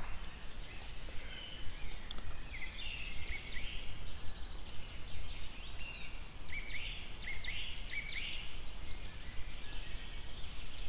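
Birds chirping in the background: short, scattered chirps, some rising in pitch, over a low steady hum.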